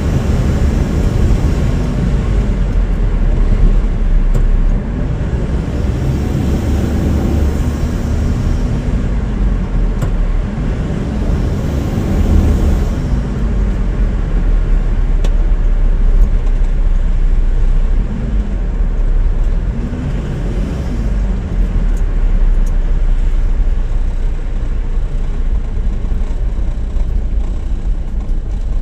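A car being driven, with a steady low rumble of engine and road noise. The engine pitch rises and falls several times as it accelerates and eases off.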